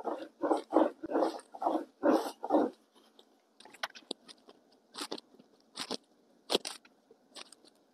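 A rolling pin fitted with thickness rings is rolled back and forth over dough on a wooden board, giving a quick run of rolling strokes, about three a second, for the first few seconds. Then a small plastic heart-shaped cookie cutter is pressed through the dough onto the board, with soft scraping and a few sharp ticks.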